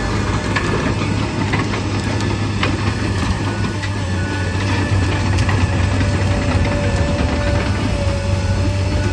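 Komatsu PC200 excavator's diesel engine running steadily, a low hum with scattered light clicks and knocks.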